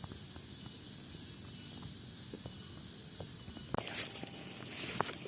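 Steady high-pitched insect drone with scattered light clicks and footsteps. About three-quarters of the way through it cuts off abruptly to a broader hiss with a few more clicks.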